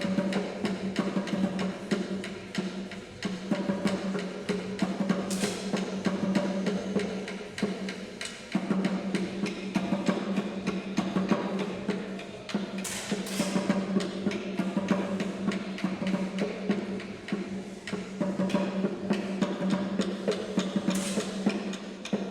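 Music with a fast, steady drum and percussion beat over a held low note.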